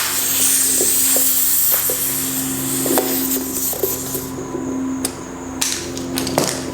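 Compressed air hissing into a lawn tractor tire as it is inflated after its bead has been seated. The hiss stops about four seconds in and comes back briefly near the end, over a steady low hum and a few light knocks.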